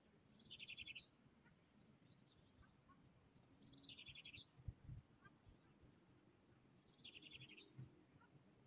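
A songbird singing faintly: three short, rapid trilled phrases, each under a second long, about three seconds apart. A soft low thump comes about halfway through.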